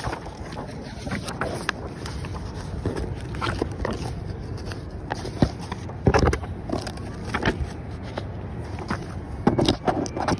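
Walking with a handheld phone: irregular rustling and clicking from handling the phone and papers, mixed with footsteps on pavement. Louder bursts with a low rumble come about six seconds in and again near the end.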